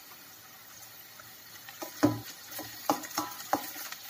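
Onions frying in oil in a stainless steel pan with a faint steady sizzle. About two seconds in, a spatula starts stirring and knocks against the pan about six times, the first knock the loudest.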